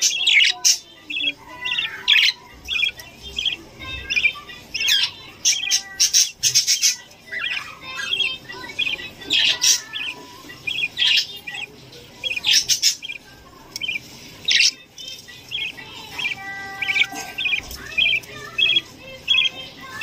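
Budgerigars calling in a nest box with their chicks: a steady run of short, scratchy chirps several times a second, broken by louder harsh squawks. One longer pitched call comes near the end.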